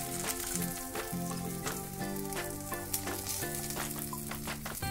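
Masala-coated small fish shallow-frying in a little oil in a non-stick pan: steady sizzling with crackling pops, and a metal spoon scraping and tapping as the fish are turned and basted. Background music plays underneath.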